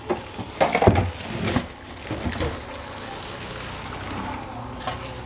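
Styrofoam packing blocks creaking and scraping with a plastic wrapping bag crinkling as a printer is pulled out of its packaging, a burst of loud crackling handling about a second in, then quieter rustling.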